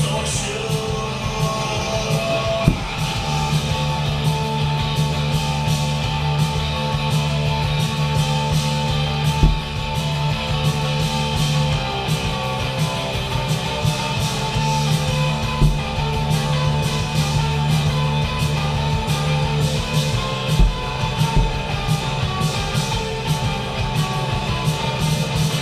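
Rock music with guitar, steady throughout. A few low thumps stand out above it, about 3, 9, 16 and 21 seconds in.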